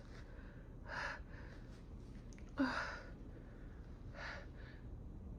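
A woman's sharp, gasping breaths through a nose irritated by chhinkni sneezing powder: three short breaths about a second and a half apart, the middle one loudest with a brief catch in the voice.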